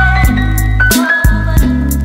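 Background music with a steady beat, a bass line and a melody.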